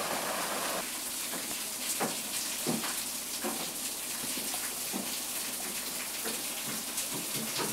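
Water rushing and splashing steadily off a gristmill's waterwheel, with a few faint knocks scattered through.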